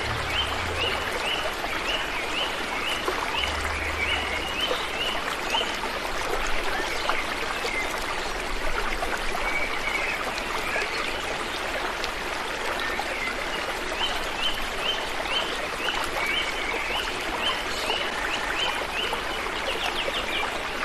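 Shallow rocky stream running and splashing over stones, a steady rush of water. Twice a quick run of short high chirps from a small animal comes through on top of the water, once at the start and again about two-thirds of the way in.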